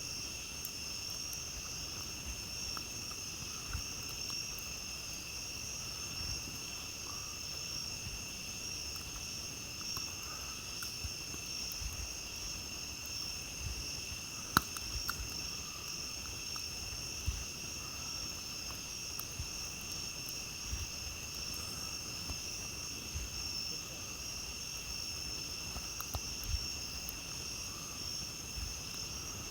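A steady chorus of night crickets trilling, with a campfire crackling softly underneath and one sharp pop about halfway through.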